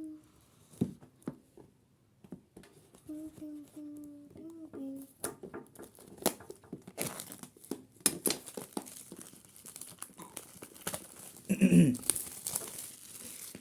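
Packaging of a smartphone box being unwrapped: crinkling and tearing with scattered clicks and taps, growing into steady crinkling in the second half. A brief loud sound with a falling pitch near the end.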